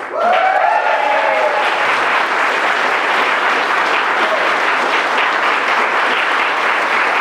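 A crowd applauding, steady dense clapping that starts suddenly and keeps going, with one voice calling out over it briefly at the start.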